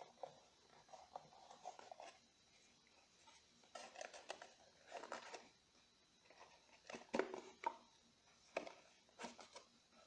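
Faint rustling and scraping of a cardboard box, with scattered soft knocks, as hands work a snug inner cardboard box out of it. The loudest handling comes about seven seconds in.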